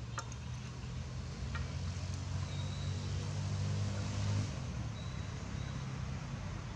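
A motor vehicle's engine running with a low, steady hum that grows louder and then drops back about four and a half seconds in, with a couple of light clicks in the first second and a half.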